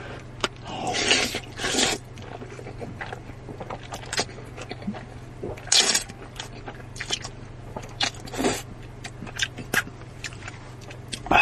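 Close-miked eating of creamy fire-chicken (Buldak) noodles: irregular chewing and mouth noises with scattered short clicks and scrapes, over a steady low hum.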